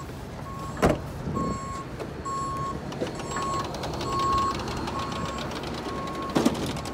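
A vehicle's electronic warning beeper sounds a single steady tone at an even pace, a bit under once a second. There is a thump about a second in and another near the end.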